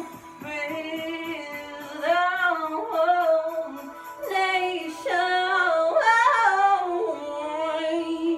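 A woman singing solo in long held notes that slide up and down, in several phrases with short breaks between them.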